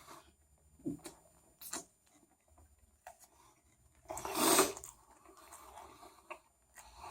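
Person chewing a mouthful of chicken sandwich: scattered soft mouth noises, with one louder noisy burst about four seconds in.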